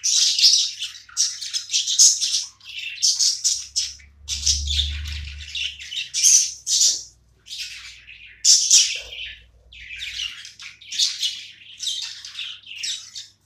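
Budgies chattering and squawking in a busy, unbroken stream of short, high chirps and squawks.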